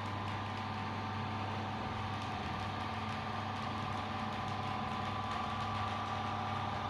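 Steady machinery hum: a constant low drone with a steadier higher tone above it, unchanging throughout.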